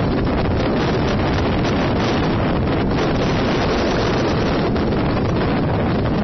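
Typhoon wind buffeting the microphone over heavy surf from a storm-whipped sea, a loud, steady rush of noise.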